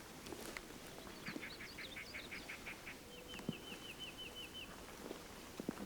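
Small birds singing: a quick run of about ten repeated notes, then a trill of short down-slurred whistles. A few faint clicks sound near the middle and the end.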